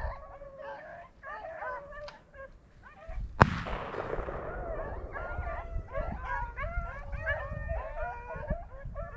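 A pack of rabbit dogs baying and yipping in chorus as they run a rabbit. A single sharp shotgun shot about three and a half seconds in echoes away.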